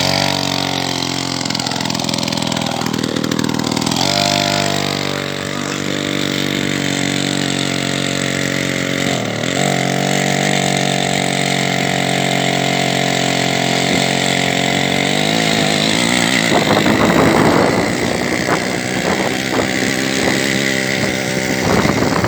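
Ural chainsaw's single-cylinder two-stroke engine, mounted on a homemade trike, running steadily, then the revs going up and down unevenly over the last few seconds.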